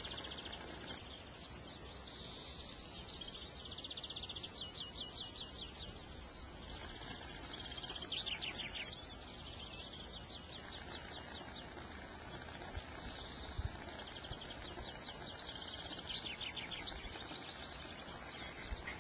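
Small songbirds singing in fast, high trills, several phrases overlapping, some ending in quick downward sweeps, over a steady low rumble.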